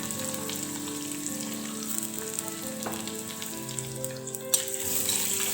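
Chopped onion sizzling steadily as it fries in hot coconut oil in a clay pot, softening, with faint background music notes underneath.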